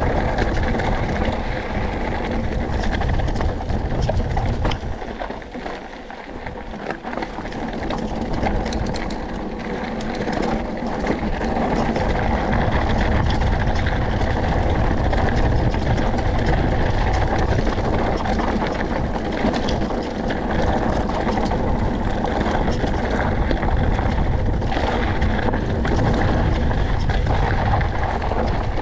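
Wind buffeting the microphone of a mountain bike ride-along camera, over the rumble of tyres rolling on loose, rocky dirt, with scattered sharp clatters from the bike over rocks. It eases off for a couple of seconds about five seconds in, then comes back up.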